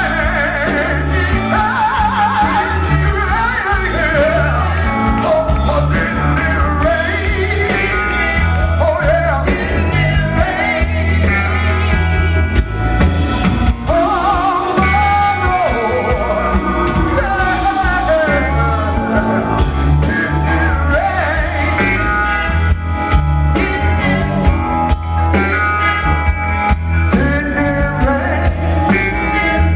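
Live blues-rock band playing with a singer, steady bass and drums under guitar, the sung melody wavering over the band.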